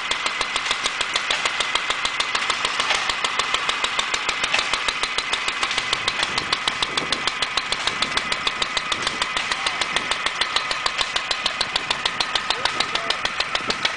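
Small antique single-cylinder stationary engine running steadily with rapid, even beats, driving a belted blower fan, with a steady high whine over it.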